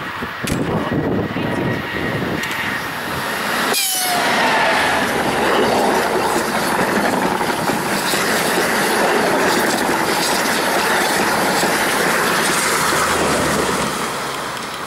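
EP20 electric locomotive and the Strizh express coaches passing at high speed, with wheels clicking over the rail joints as the locomotive goes by, then a steady rushing roar of wheels and air as the long train of coaches streams past. The roar eases off near the end as the train clears.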